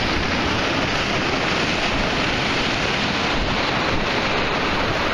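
Steady rush of sea surf with wind blowing on the microphone.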